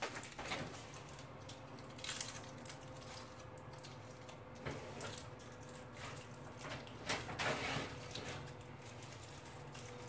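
Faint scattered clicks and rustles of small objects being handled, a little stronger about two seconds in and again around seven seconds, over a faint steady hum.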